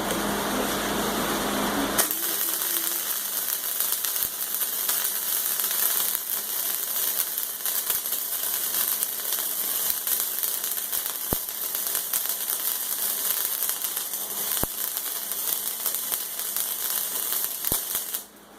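Hobart arc welder laying a bead across the end of a steel plate: a steady welding crackle starts about two seconds in and cuts off suddenly just before the end. The welder has been misbehaving on this job, which its user blames on moisture from the rainy weather.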